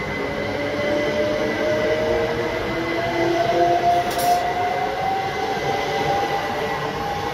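A passenger train pulling out of the station, moving away, with a whine that rises slowly in pitch as it gathers speed and a steady high tone over the rumble of the wheels.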